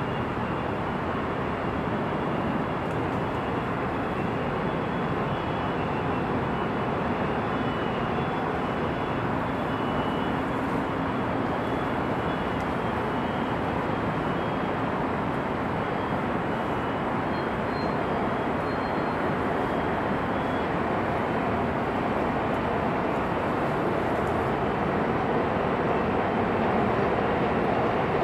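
Steady din of heavy freeway traffic: a continuous wash of tyre and engine noise from a stream of passing vehicles, growing a little louder near the end.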